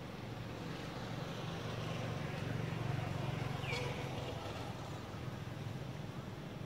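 Motorbike engine running, growing louder toward the middle and then easing off, with one short high squeak near the middle.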